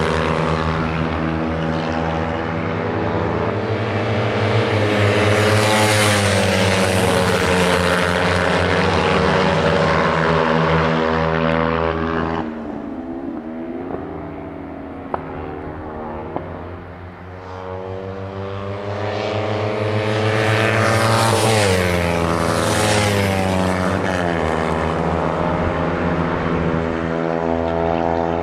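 Kawasaki Ninja 300 parallel-twin race bikes running at high revs along a circuit straight, their engine pitch dropping as they pass. The sound falls away suddenly about twelve seconds in, then builds again as more bikes come through and fall in pitch going by.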